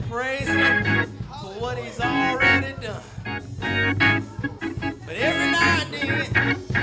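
Gospel church music with an organ playing.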